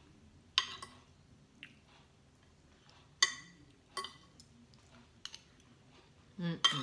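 Metal spoon and fork clinking against a ceramic plate: a few sharp clinks, each with a short ring, and lighter ticks between them.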